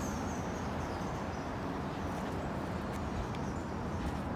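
Steady outdoor city background hum with a low rumble, with no distinct sounds standing out.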